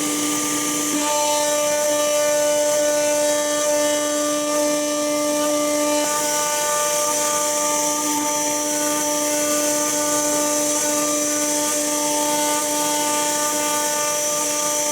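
CNC router spindle running and milling aluminum: a steady whine made of several held tones over a hiss, the tones swelling and fading slightly as the cut goes on.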